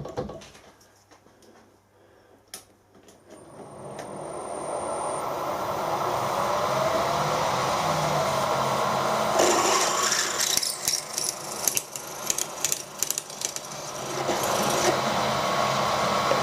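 Electric drill with a cobalt bit, drilling out a broken stud. The motor speeds up and runs steadily. Partway through, the bit bites into the steel with a rapid scratchy rasping for about five seconds, then the drill runs on more evenly.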